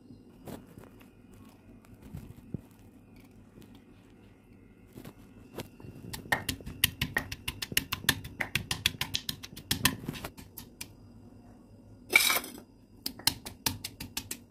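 Stone pestle pounding garlic cloves in a stone mortar: a quick run of sharp knocks, several a second, starting about five seconds in. Near the end comes a short, louder burst, then a few more knocks.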